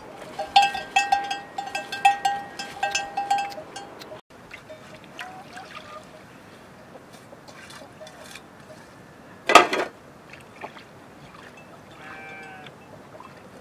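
Metal bells ring in irregular clanks at a few fixed pitches as cattle walk a path. Then water is poured and sloshed from a metal bowl into a pan, with one short, loud splash about nine and a half seconds in.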